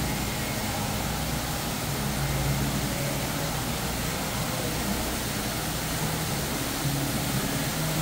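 Steady rushing noise of indoor waterfalls pouring into a large aquarium.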